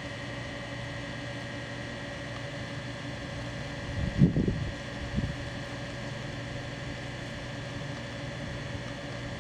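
Steady mechanical hum of a running motor or fan, with several fixed tones. A couple of brief low bumps come around the middle, the first one louder.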